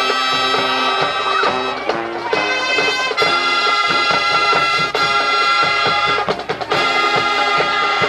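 High school marching band playing: brass holding loud chords that change every second or two, over regular drum hits.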